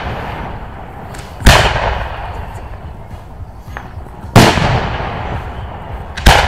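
Aerial firework shells bursting overhead: three sharp booms a couple of seconds apart, each trailing off in a rolling echo that fades over a second or two.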